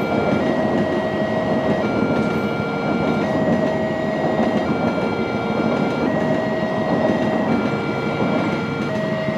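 Railway level-crossing warning alarm alternating between two tones about every 1.4 seconds, over the steady rumble of a passing train.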